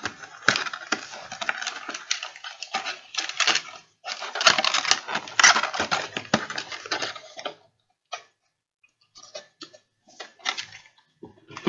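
Clear plastic bag crinkling and crackling as it is handled, dense for several seconds, then only a few scattered crinkles near the end.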